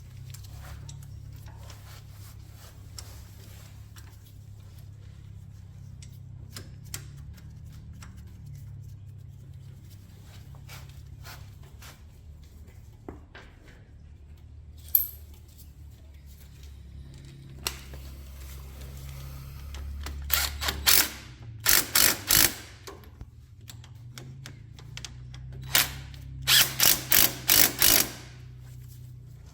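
Hand ratchet wrench being worked in short back-and-forth strokes, giving quick bursts of ratcheting clicks: a few scattered clicks at first, then two clusters of loud bursts in the second half, over a low steady hum.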